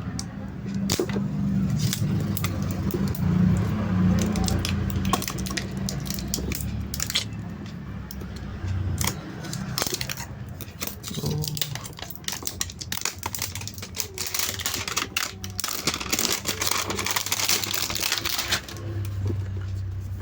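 Phone box and packaging being handled: scattered clicks, taps and rustles, with a longer stretch of crinkling near the end, over a steady low hum.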